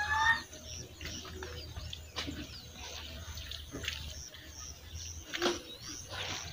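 Birds chirping outdoors: a short high chirp repeats about twice a second, with a few sharper calls or snaps between.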